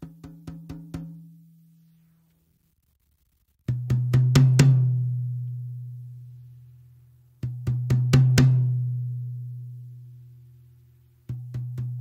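Drum-kit toms fitted with Remo Controlled Sound Clear heads (single-ply 10-mil film with a 5-mil black dot) struck by hand in quick runs. A higher tom is hit about five times at the start, then a lower tom is hit in three runs of several strokes. Each run leaves a long, steady low ring that slowly fades, and the lower tom is the loudest.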